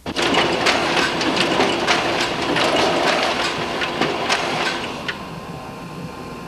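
Photocopier running and feeding sheets out into its output tray: a busy mechanical clatter with sharp clicks about three times a second. About five seconds in the clicks stop, leaving a steady hum that dies away.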